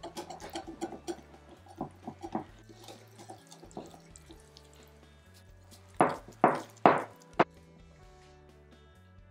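Wire whisk clicking quickly against a glass bowl as flour is stirred into a wet egg-and-oil batter, then a few lighter clicks. Near the end come four louder knocks. Soft background music runs throughout.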